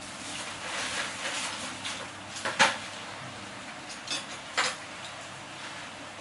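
Several sharp knocks and clatters of hard objects being handled, the loudest about two and a half seconds in and two more a little after four seconds.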